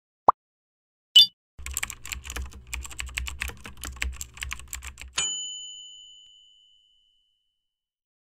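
Logo-intro sound effects: a short blip, a bright chime, then about three and a half seconds of rapid computer-keyboard typing over a low hum, ending in a ringing ding that fades away.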